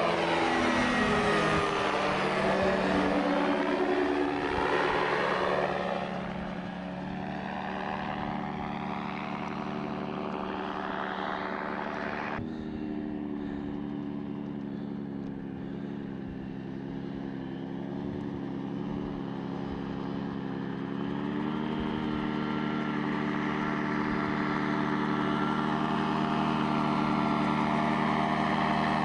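Single-seat gyrocopter's engine and propeller droning as it flies low overhead, the pitch sweeping down as it passes. It then drops to a steadier, quieter drone at a distance, and grows louder again near the end as it comes back toward the listener.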